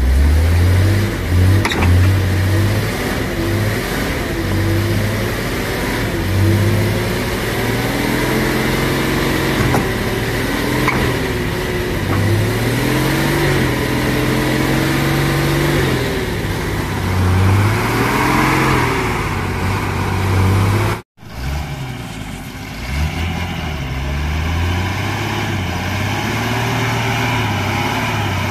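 A Shaktiman truck's diesel engine revving up and down under heavy load while its rear wheels spin in deep mud. The engine pitch rises and falls over and over, and the sound cuts out for a moment about three quarters of the way through.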